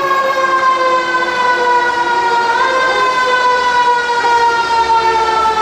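Siren wailing in a slow cycle: one steady tone with overtones slides slowly down in pitch, then jumps back up about two and a half seconds in and slides down again.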